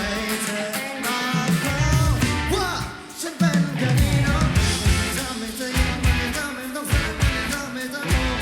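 Live rock band playing a song, with a sung lead vocal over guitars, bass and drums. The band thins out briefly about three seconds in, then comes back in full with heavy bass.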